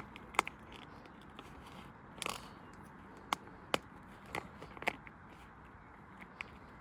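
Scattered light knocks and clicks, about six in a few seconds and unevenly spaced, over a faint hiss: a gutted Pinnacle washing machine running with a lump of mud loose in its drum.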